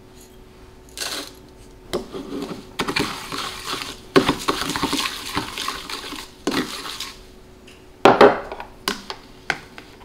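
Metal spoon scooping powder from a ceramic jar and stirring it in a small plastic bowl: a run of scraping and clinking against the jar and bowl, then a few sharp clicks near the end.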